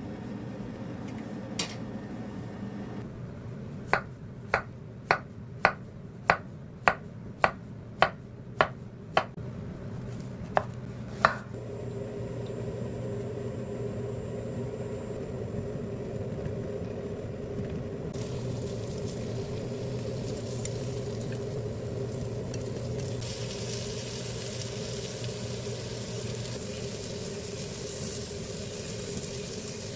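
Kitchen sounds: a run of about ten sharp, evenly spaced knocks, about two a second, then food starts sizzling in a frying pan, the sizzle growing louder twice in the second half.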